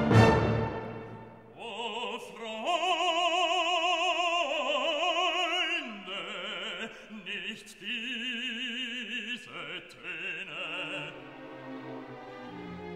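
Background music: an operatic voice singing held notes with wide vibrato over an orchestra. It comes in about a second and a half after a loud orchestral chord dies away at the start.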